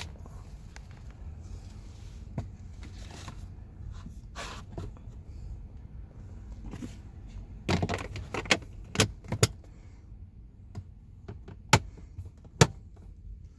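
Plastic handling noises as a new cabin air filter is slid into its housing behind the glovebox: light rustling and knocks, a cluster of louder knocks a little past halfway, and two sharp clicks near the end.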